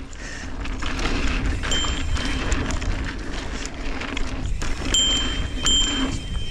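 Mountain bike ridden fast over a dirt pump track, heard from a camera on the bike: wind noise on the microphone and tyres rolling on dirt, with frequent clicks and rattles from the bike. It grows louder over the first second as speed builds.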